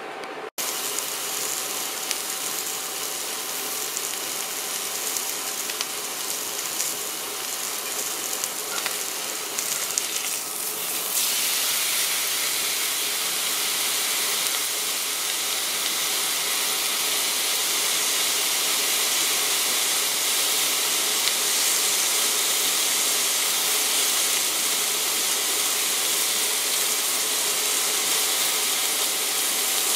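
T-bone steak sizzling in a cast-iron grill pan: a steady sizzling hiss that grows louder from about eleven seconds in.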